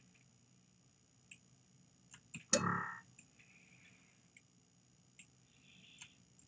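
Faint clicks from a computer mouse. About two and a half seconds in comes one short, loud computer chime that rings briefly and fades, as a file copy appears on the desktop.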